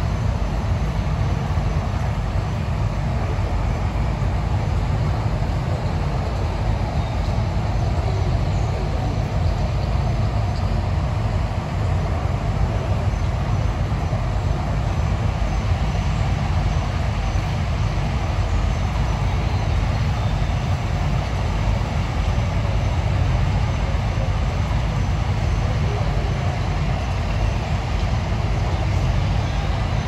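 Steady, even rumbling noise, heaviest in the low range, with no distinct events or voices.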